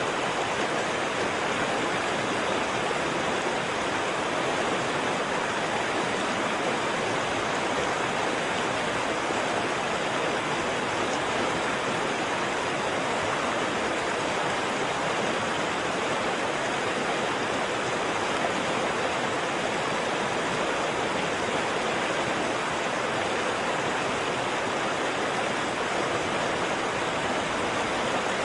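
Waterfall: water falling and rushing in a steady, even roar of white noise with no breaks or changes.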